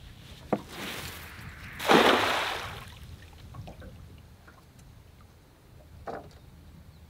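A hand-thrown cast net rushes through the air and lands flat on the water about two seconds in, its ring of lead weights hitting in a loud spreading splash that fades over about a second. A sharp knock comes just before the throw and a smaller one near the end.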